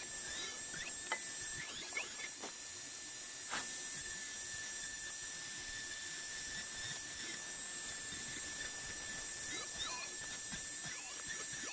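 High-speed rotary carving tool running on maple wood with a steady high whine. Short squeaky chirps come and go over it, mostly near the start and again near the end.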